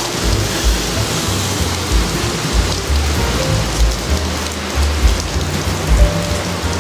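Rain falling on wet asphalt, a steady dense hiss of drops, with background music underneath.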